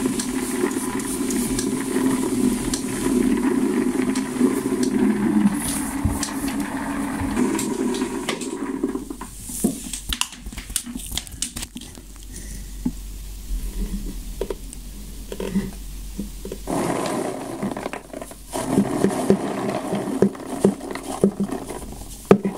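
Motor-driven star-roller drum turning, with the firework stars tumbling and rattling inside. About nine seconds in the drum goes quiet, leaving scattered clicks and scrapes, and near the end the stars clatter and patter into a plastic strainer.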